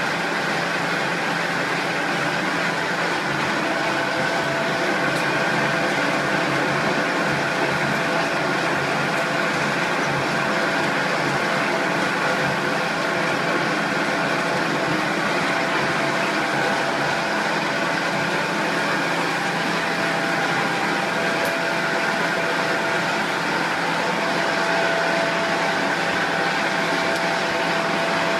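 Plastic recycling machinery running steadily: electric motors driving a machine fed with scrap plastic film, a continuous even noise with a faint steady whine.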